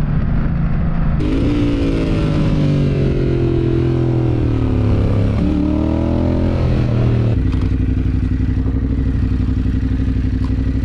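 Motorcycle engine on board the camera bike: the revs fall as it slows on the track, rise briefly about five seconds in, then settle into a steady idle from about seven seconds in.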